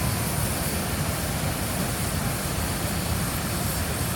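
Waterfall: a steady rushing roar of falling water with a heavy low rumble.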